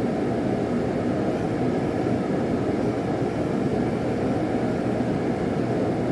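Forge running with a steady, even roar and no hammer blows.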